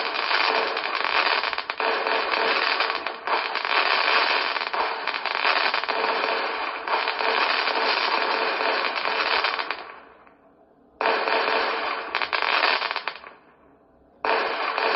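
Fireworks display: a dense, continuous crackling of many bangs and pops from bursting shells. It dies away to near silence about two-thirds of the way through, starts again suddenly a second later, dies away once more, and starts again sharply just before the end.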